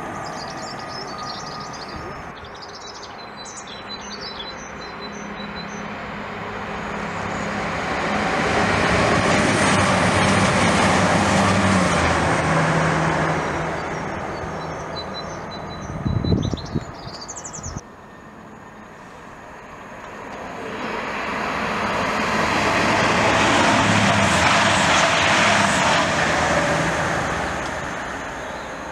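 The rumble of an unseen passing vehicle swells and fades away twice, the first time with a steady low engine drone. Birds chirp over it.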